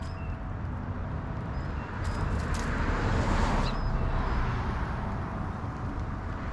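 A passing vehicle, its noise swelling to a peak about three seconds in and then fading, over a steady low rumble of outdoor background, with a few faint short bird chirps.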